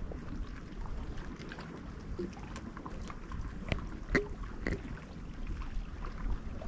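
Faint low rumble of a fishing boat sitting on the water, with a few light clicks a little past the middle.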